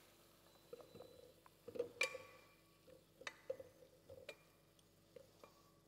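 Scattered light metallic clinks and taps of a spoon against stainless-steel cookware as cooked apples are spooned into a container, the loudest about two seconds in with a short ring.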